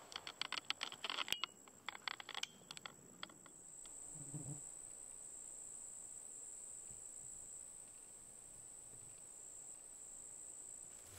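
Insects singing one continuous high-pitched buzz. A quick run of sharp clicks and taps comes over the first three seconds.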